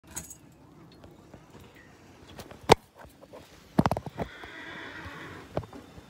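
Sharp knocks, the loudest a little before halfway and a quick cluster just after, followed by a horse whinnying for about a second.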